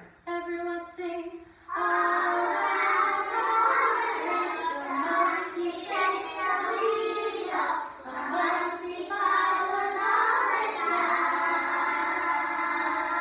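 A group of young children singing a song together. A single voice sings a few short notes at the start, and the whole group joins in after about two seconds.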